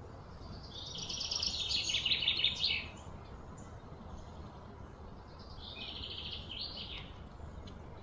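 A bird's high, rapid trill, given twice. The first, starting about a second in, grows louder and breaks off abruptly; the second is shorter and quieter. A low steady outdoor hum runs underneath.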